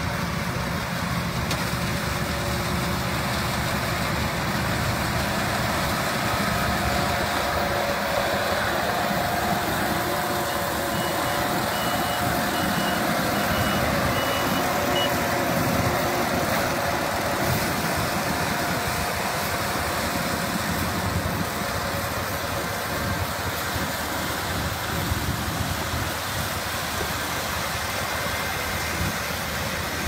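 Crawler rice combine harvesters (Yanmar, then Kubota) running while cutting and threshing ripe rice: a steady drone of engine and harvesting machinery. A short run of faint beeps comes about a third of the way through.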